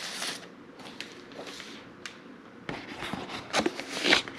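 Paper and cardboard record sleeve being handled: soft rustling and sliding with a few sharp clicks and knocks, busier in the second half.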